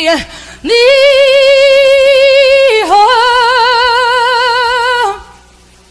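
Solo female voice singing a cappella: one long held word with a wavering vibrato, dipping briefly in pitch about three seconds in before holding again, then stopping about a second before the end.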